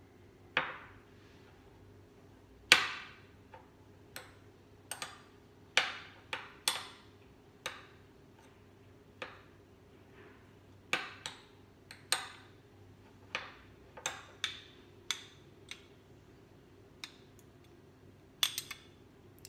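Metal spoon clinking against a small ceramic bowl while stirring and pressing tamarind pulp in hot water: irregular sharp clinks, about twenty in all, the loudest about three seconds in.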